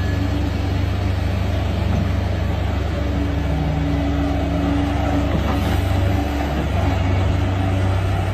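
Excavator's diesel engine running steadily under load, with a higher hum that comes and goes over it.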